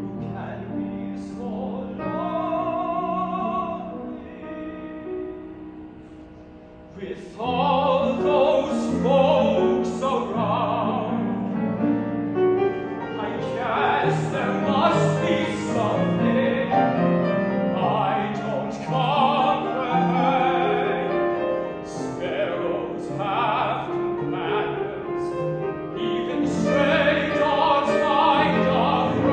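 Tenor singing an operatic aria with piano accompaniment, his held notes wavering with vibrato. Soft at first, the voice and piano grow fuller and louder about seven seconds in.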